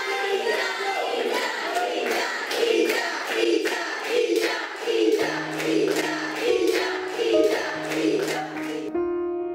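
A group of schoolgirls chanting together over rhythmic clapping, about two claps a second. A low keyboard note comes in about halfway, and near the end the chanting cuts off, leaving soft piano music.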